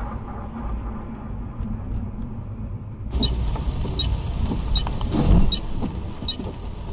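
Car driving noise, a steady low rumble of engine and road. About three seconds in it changes abruptly to another rumble with a short high tick repeating about every three quarters of a second and a brief louder swell near the middle.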